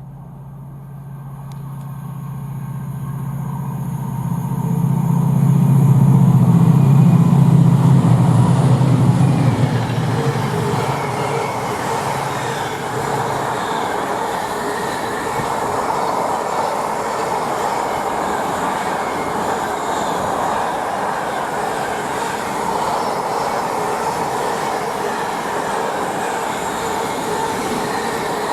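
Freight train passing at speed. The locomotive's low, steady note builds to a loud peak about six to nine seconds in as it goes by and is gone a few seconds later. The steady rolling noise of the wagons running past then carries on.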